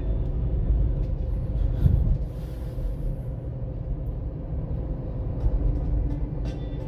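Steady road and engine rumble inside a moving Hyundai HB20's cabin, with a brief louder thump about two seconds in.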